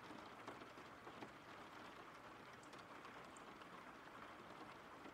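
Faint steady rain: an even hiss of rainfall with light, scattered drop ticks.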